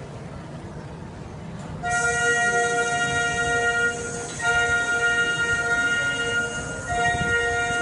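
Symphonic wind band coming in about two seconds in with loud sustained brass and woodwind chords. The chords are held in long blasts, with two short breaks between them.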